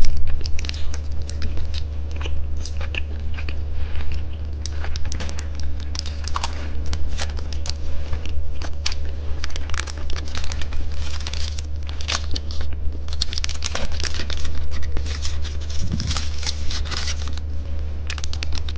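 Crinkling and tearing of a plastic candy wrapper close to the microphone, as the next candy is opened, in dense irregular crackles over a steady low hum.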